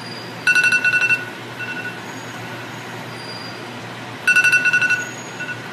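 Timer alarm going off in two bursts of rapid high-pitched beeps about four seconds apart, each trailed by a shorter, fainter one. It signals that the rice's nine-minute simmer is up and the heat should go off.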